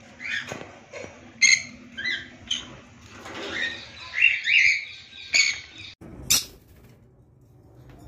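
Green-cheeked conures calling: a run of short chirps and squawks over about six seconds, ending with one sharp call, after which the calling stops.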